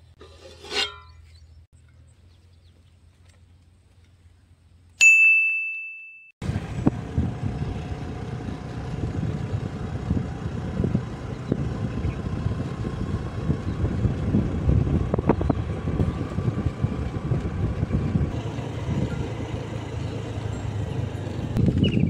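A single bright chime about five seconds in that fades out over a second. Then the steady rumble of a moving road vehicle, engine and road noise, at an even level.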